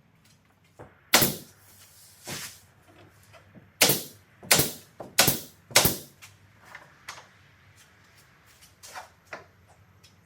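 A series of sharp knocks or impacts at uneven spacing. Six loud strikes come in the first six seconds, followed by a few fainter clicks and taps.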